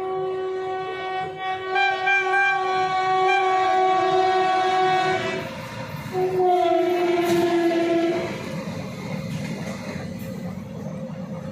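Locomotive horn sounding a long blast, breaking off about five and a half seconds in, then a second, slightly lower blast that lasts about two seconds. After it the train's wheels keep rumbling along the track.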